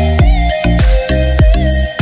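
Electronic background music with a steady beat of deep kick drums, about two to three a second, under held synth tones and a wavering higher melody line.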